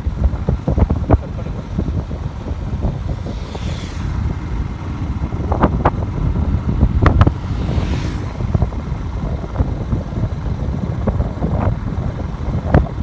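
Wind buffeting the microphone over the low rumble of a moving motorcycle, with irregular gusts and knocks, and two faint whooshes about four and eight seconds in.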